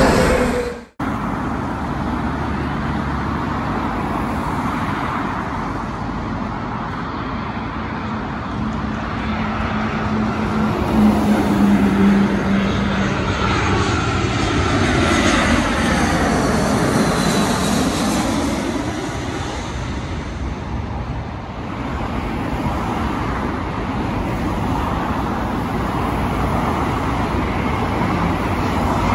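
Twin-engine jet airliners on final approach passing low overhead. A steady jet-engine rumble and whine that falls and then rises again in pitch partway through, over a steady hum of road traffic. About a second in the sound cuts off briefly, ending an earlier jet's pass whose pitch was falling.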